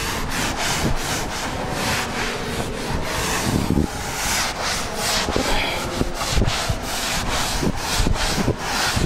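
Chalkboard duster rubbing over a blackboard in repeated back-and-forth strokes, wiping off chalk writing.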